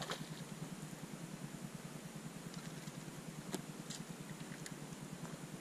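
A small hooked pike splashing at the water's surface at the very start, then a few light clicks over a steady low background noise.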